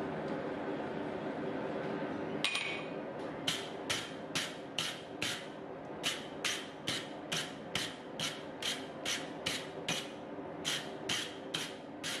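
Wire brush scrubbing forge scale off a red-hot mild steel bar on the anvil, in quick, even strokes about two a second, starting about two and a half seconds in after a single louder scrape. A steady hum runs underneath.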